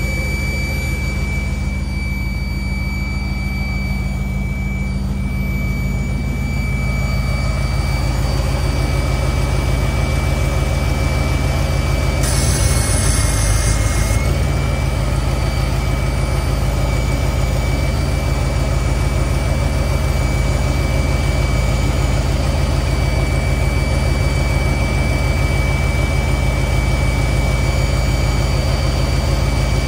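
Car engine idling steadily on a freshly rebuilt Edelbrock 650 carburetor, with a thin steady high-pitched tone over the rumble. About twelve seconds in a hiss rises for about two seconds.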